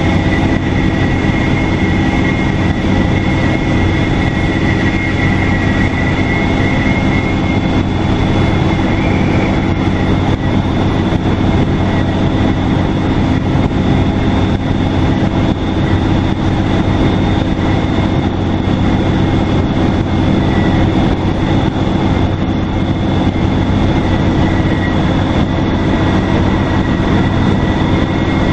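Detroit Diesel Series 50 diesel engine of a 2002 NABI 40LFW transit bus running steadily under way, with a high, steady turbocharger whistle over the engine drone and road noise.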